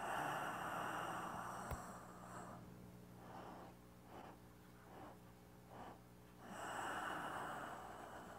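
A man's slow, deep breathing: one long breath lasting about two and a half seconds at the start, then another beginning about six and a half seconds in, with a faint tick about two seconds in.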